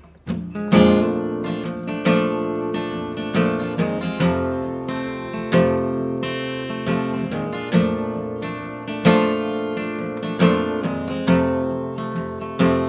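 Acoustic guitar strummed in a steady rhythm, starting just after the opening. This is the solo instrumental intro of a country song, before the singing comes in.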